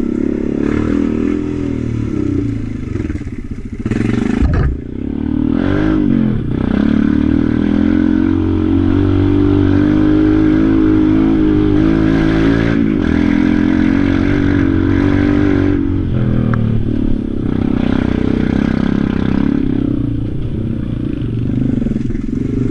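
Quad bike (ATV) engine running while riding a dirt trail, its note dropping and rising with the throttle a few seconds in, then holding steady.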